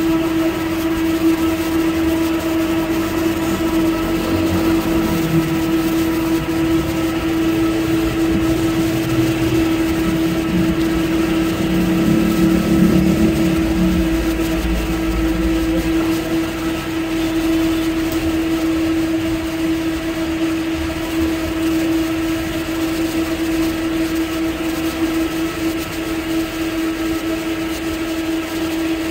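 Electric fan humming steadily: one constant pitched drone with overtones, beside a charcoal grill.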